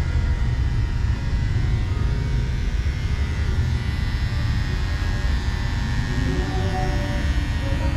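Electric hair clippers buzzing steadily as they cut hair over a comb on top of the head.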